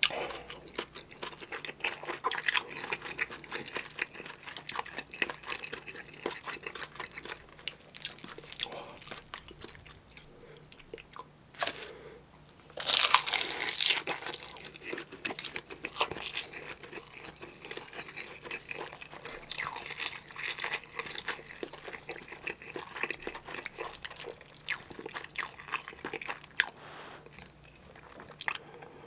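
Close-miked chewing of spicy kimchi stew with Spam, tuna and rice: wet mouth sounds and crunching of kimchi, with a louder noisy burst about halfway through as another mouthful goes in.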